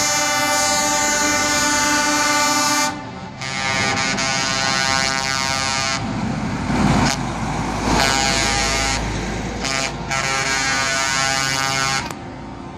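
Truck air horns sounding in long held blasts as show trucks drive past. The horns break off briefly about three seconds in and again near the end. The low rumble of a passing truck's diesel engine swells in the middle.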